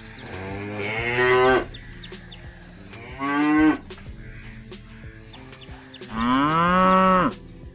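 Cattle mooing three times: a swelling moo, a short one about three seconds in, and a long drawn-out moo near the end whose pitch rises and then falls.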